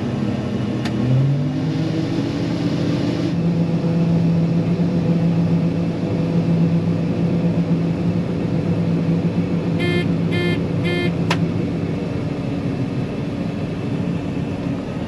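John Deere 9500 combine's diesel engine revving up and then running steady at high throttle, ready to unload. A quick run of four short electronic beeps sounds about ten seconds in.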